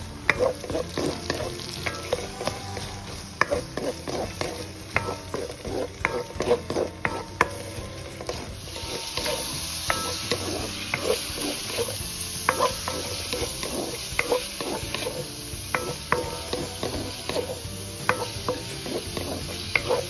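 Food frying in a honeycomb-textured wok while a wooden spatula stirs it, with frequent scrapes and taps on the pan: chopped onions sizzling in fat, then cubes of pork liver. The sizzle grows louder a little before halfway through.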